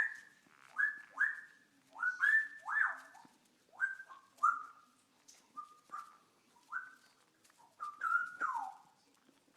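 A bird calling over and over in short whistled notes, most sweeping quickly upward, about a dozen in a row at uneven spacing, with a longer falling whistle near the end.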